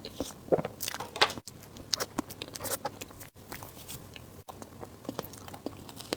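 Close-miked eating sounds of a person biting and chewing food, a dense run of short wet clicks and smacks. The sound cuts out for an instant three times.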